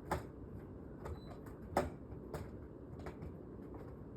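A few sharp knocks and clicks as a window unit's bracket is forced into place, the two loudest about a tenth of a second in and near the two-second mark, with fainter ones after.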